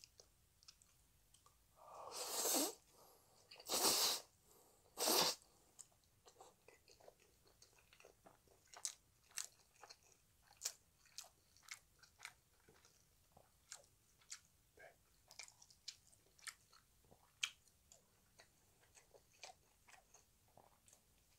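Close-miked eating of jjapaghetti noodles: three loud slurps about two, four and five seconds in as the noodles are sucked into the mouth, then steady wet chewing with many small smacking clicks.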